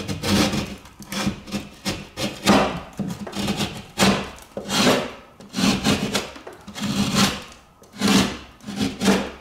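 A hand tool rasping in repeated strokes along the edge of a wooden window jamb, trimming it flush with the wood. Each stroke is a short, rough scrape, about one to two a second.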